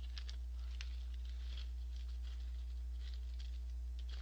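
Steady low electrical hum, with light, scattered ticks and rustles over it, some of them from a plastic snack bag being handled near the end.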